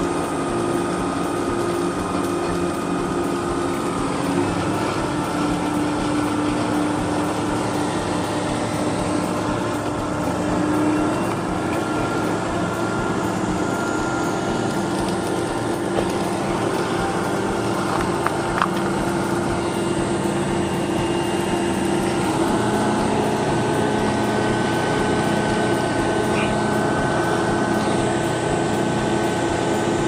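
Engines of construction machinery running steadily in a continuous hum, with one brief sharp tick partway through.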